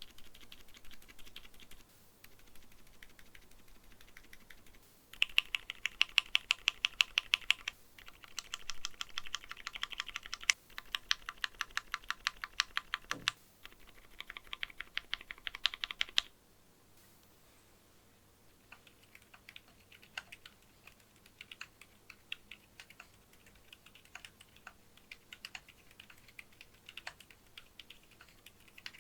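Silent mechanical keyboard switches being typed on, key after key. First comes a series of separate bursts of fast key presses, some quite loud, as different silent switches are compared. Then, from about halfway in, much quieter, soft and scattered typing on stock Akko V3 Fairy Pro silent switches in a Monsgeek M1 keyboard.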